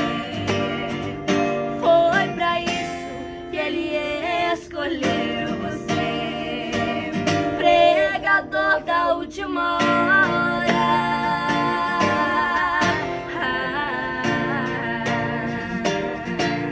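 A song sung to strummed acoustic guitar, the voice carrying a wavering melody over a steady strum.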